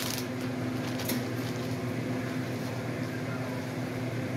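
Steady low hum of a small electric motor, with a brief rustle of plastic packaging being handled about a second in.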